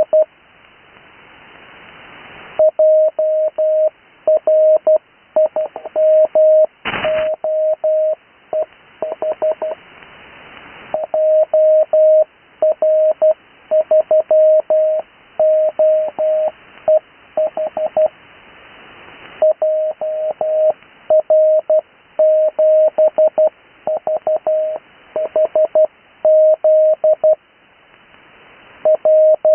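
Morse code (CW) on the 80 m amateur band heard through an HF receiver: a single steady tone of about 600 Hz keyed on and off at 12 words per minute in standard spacing, spelling out amateur call signs. Band hiss swells in the gaps between characters, and a short burst of static comes about seven seconds in.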